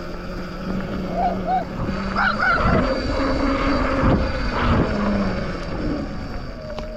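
Small dog barking several short times, sounding like a chihuahua, over wind rushing on the microphone of a moving electric bike.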